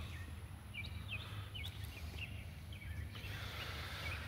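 Small birds chirping outdoors in short, repeated high notes over a steady low rumble, with a brief rustling hiss about three seconds in.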